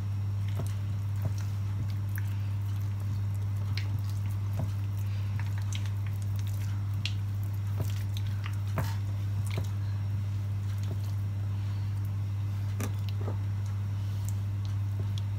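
Wet, squishy handling sounds of fingers rubbing soft herb butter under and over the skin of a raw whole chicken, coming as scattered short squelches and clicks. A steady low hum lies underneath.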